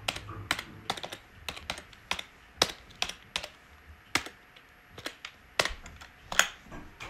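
Laptop keyboard being typed on: separate key clicks at an uneven pace, a few a second, as a name is keyed into a search box.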